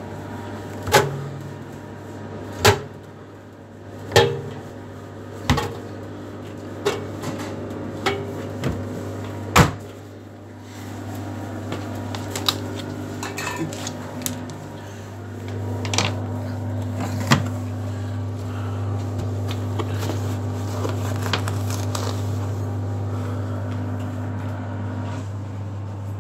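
A series of sharp knocks and clunks of things being handled, about eight in the first ten seconds and a few more later, over a steady low hum. About fifteen seconds in, the hum gets a little louder and a second, higher steady tone joins it.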